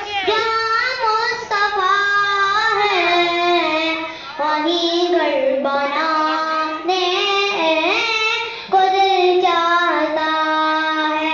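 A boy reciting a naat, an unaccompanied devotional song, through a microphone and PA loudspeaker; his voice holds long notes and slides between pitches, with short pauses for breath about 4 s and 8.5 s in.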